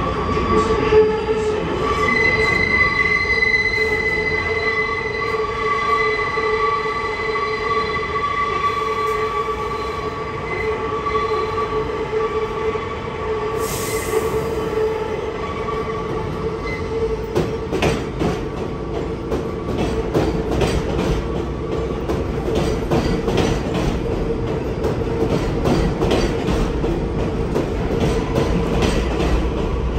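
Kawasaki R188 subway train pulling into an elevated station. Its steel wheels squeal in long steady high tones through the first half, with a brief hiss about halfway. Then the wheels click over rail joints as the train runs alongside the platform, over a steady low hum.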